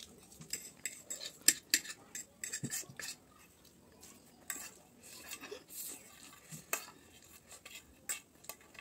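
Metal fork clinking and scraping against a ceramic plate as the last noodles are scooped up: an irregular run of sharp clicks and short scrapes.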